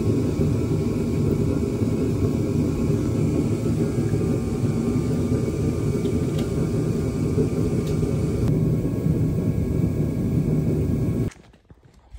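Kerosene heater running, a steady low rumble that fills the space. It stops abruptly near the end.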